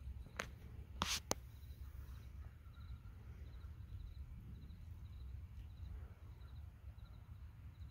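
Outdoor ambience: a low wind rumble on the microphone, with a few sharp knocks about a second in. Faint, high, short pulsed chirps repeat about twice a second, typical of an insect.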